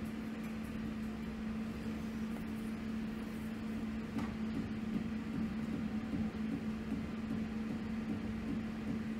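A steady low hum over a faint hiss, with one soft click about four seconds in.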